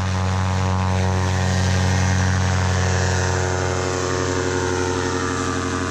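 Sky Engines paramotor engine and propeller running loud and steady at takeoff power as the pilot launches, with an even pitch that sinks slightly in the second half.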